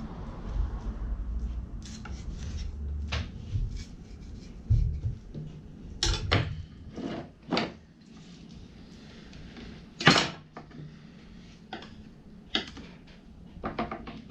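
Boning knife cutting and scraping along a Spanish mackerel on a plastic cutting board, with scattered taps and knocks of the blade and the fish against the board. The sharpest knock comes about ten seconds in.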